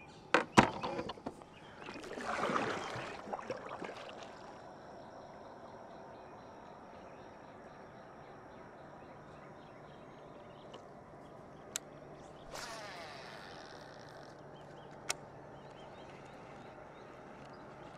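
A few sharp clicks of a baitcasting rod and reel being handled, then, about two seconds in, a longer whirring rush as line pays out on a cast. After that it is quiet, with a faint steady high-pitched tone, a second shorter rush of reel or water noise about twelve seconds in, and a couple of single ticks.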